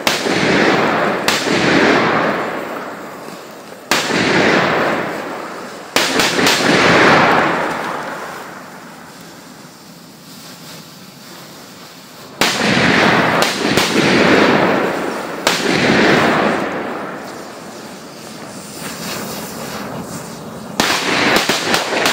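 Polenböller, powerful Polish firecrackers, going off one after another: about six sharp, loud bangs, each trailing into a long rolling echo. There is a quieter lull in the middle, and a burst of crackling comes near the end.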